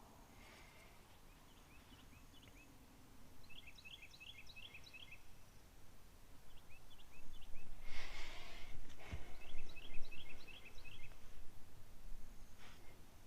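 A bird chirping in quick runs of short, hooked notes, several to a second, against outdoor background noise. A rustle and a sharp click come about eight to nine seconds in.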